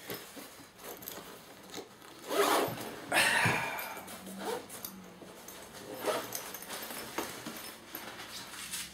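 Zipper of a padded Fender gig bag being pulled, two long zips about two and a half and three seconds in, with fainter handling noises of the bag around them.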